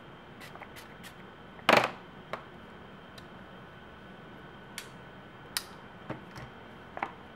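Scattered light clicks and taps from handling a smartphone and its plastic protective film, with one louder knock a little under two seconds in.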